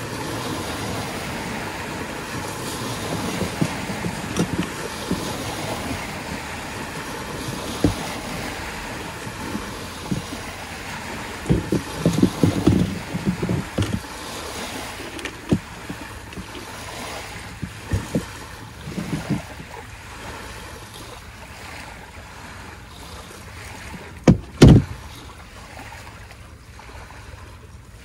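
Waves washing on a beach with wind on the microphone, broken by scattered low thumps, the loudest a pair about three quarters of the way through.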